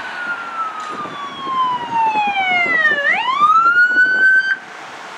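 Ambulance siren wailing: one long, slow fall in pitch, then a quick rise back up, stopping abruptly about four and a half seconds in.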